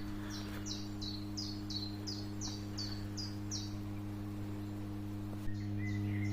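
A small songbird singing a quick run of about ten high, descending notes, roughly three a second, then starting again near the end. Underneath, a steady low electrical hum from overhead power lines, which grows louder after a small click about five seconds in.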